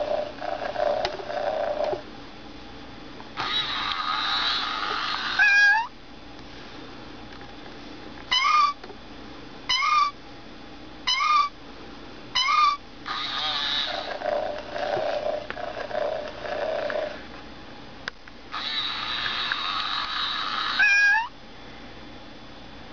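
Hasbro FurReal Friends Newborn Kitten toy playing its recorded purring and short rising meows: purr pulses in stretches, and about six meows, four of them on their own about a second apart near the middle. Longer stretches of hissy noise come in between, each ending in a meow.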